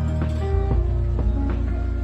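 Background music with plucked guitar notes over a held bass line.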